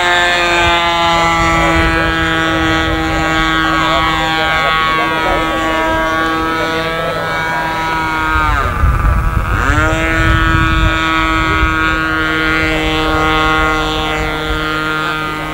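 Engine of a radio-controlled scale Bücker Jungmeister biplane running steadily in aerobatic flight. About eight and a half seconds in, its pitch drops steeply and climbs back a second or two later, with a low rumble at the dip.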